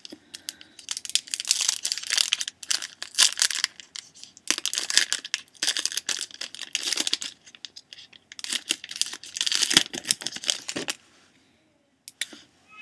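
Hockey card pack wrapper being torn open and crinkled by hand, in several bursts of crackling that stop about a second before the end.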